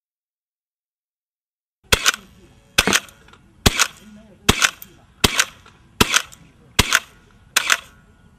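M16-style rifle fired in single shots: after a short silence, eight sharp shots a little under a second apart, each with a brief echo.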